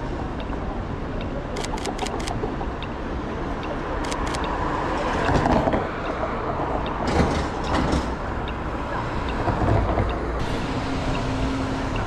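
Cars passing through a city intersection over steady traffic noise, with the loudest passes about five and a half and seven seconds in. Quick runs of three or four camera shutter clicks from a Sony A7 III shooting bursts at the passing cars.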